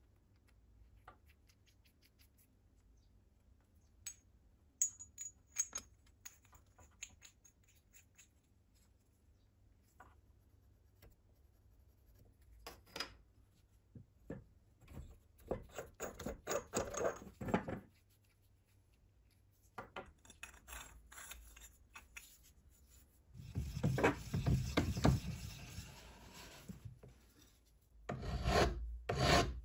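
Light clicks and taps of small metal pipe fittings being handled, then a flat hand file rasping in repeated strokes on metal, with a long stretch of loud scraping in the second half, the loudest part.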